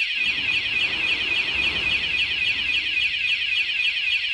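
Mengshen MS-Z08 wireless anti-theft alarm sounding its full siren, a loud high-pitched tone that warbles rapidly up and down without a break. It is the intrusion alarm, set off when the armed motorbike is moved past the first warning.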